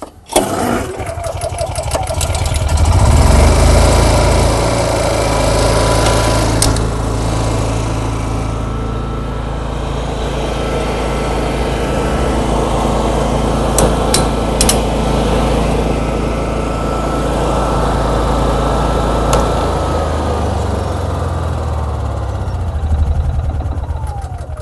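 Honda EU6500is inverter generator pull-started on its recoil starter, catching straight away, running loudest for the first few seconds, then settling into a steady run. Near the end it is switched off and the engine winds down with a falling whine.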